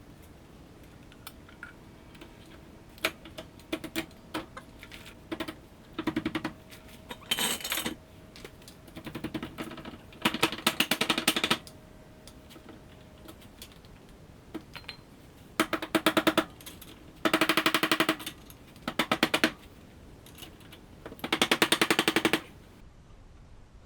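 A socket ratchet clicking in repeated bursts of rapid, evenly spaced clicks with short pauses between them, as bolts are run in.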